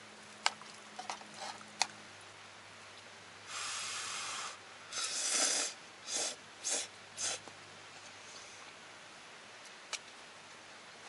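Metal chopsticks clicking against a small camping pot a few times, then noodles being eaten: a second-long blow or slurp followed by several short loud slurps.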